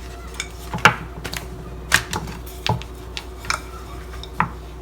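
Rolling pin knocking and clicking against the rolling board as roti dough is rolled out paper-thin: scattered sharp clicks, roughly one a second.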